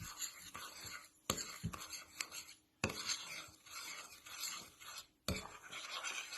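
A spoon stirring a dry powder mix of washing soda, coarse salt and citric acid in a bowl, with a gritty scraping that pauses now and then. A few sharp knocks of the spoon against the bowl come as the stirring picks up again.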